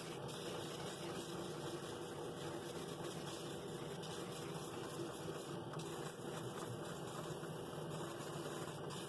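Drill press running steadily with a sandpaper sleeve on a drum sanding the inside wall of a wooden bowl: an even motor hum under the hiss of the abrasive on wood.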